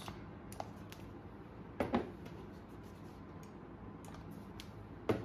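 Plastic power-tool battery packs and chargers being handled and set down on a table: a few light clicks and knocks, the loudest about two seconds in, over a faint steady hum.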